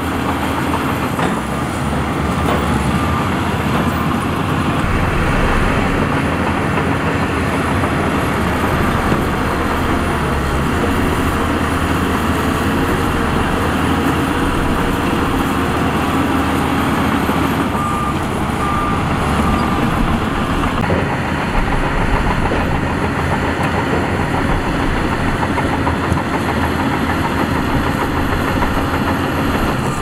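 Heavy diesel earth-moving machinery running steadily under work, with a few short high beeps about a second in and again just past the middle.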